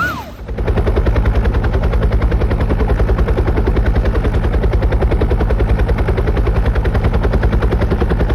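A machine running with a rapid, steady thudding beat. It starts about half a second in, right after a siren-like wail cuts off.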